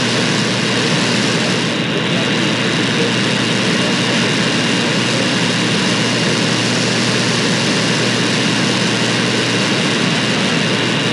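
Shortwave AM reception on 17530 kHz in a deep fade: steady static hiss from the receiver, with the Voice of America programme lost under the noise.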